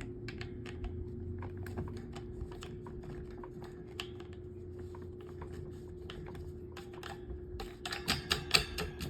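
Light plastic clicks and taps of table fan parts being handled and fitted together during reassembly, scattered at first, then a busier run of louder clicks near the end. A steady low hum runs underneath.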